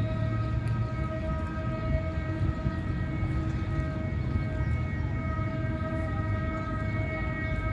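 Distant EMD GT-22CW diesel locomotive's horn held in one long steady chord of several notes, over a low rumble.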